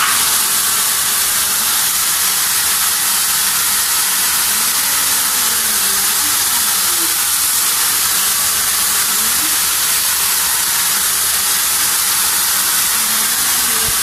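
Gaabor 2-in-1 corded stick vacuum cleaner running steadily, a loud even rushing hiss of its motor and airflow as it sucks up dirt from a tiled floor.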